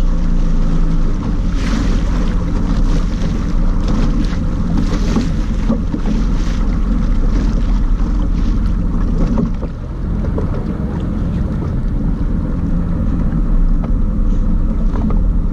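Personal watercraft engine running steadily on open, choppy water, with a low hum under water rushing and wind buffeting the microphone; it eases off briefly about ten seconds in.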